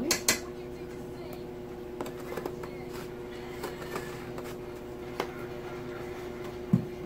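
Spice containers being handled over a steady kitchen hum: a handful of light clicks and taps, with one short low thump near the end.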